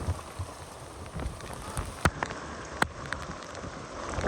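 Heavy rain pattering on surfaces during a severe thunderstorm. Two sharp knocks stand out, about two seconds and just under three seconds in.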